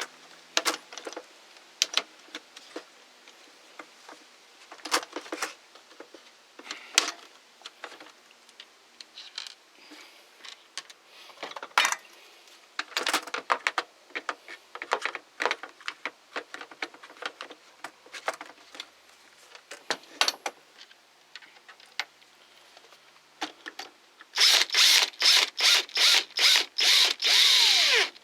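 Plastic tool housing parts clicking and knocking as they are handled and fitted together. Near the end comes a cordless driver run in about a dozen short, loud pulses, driving a long screw into the hedge trimmer's handle.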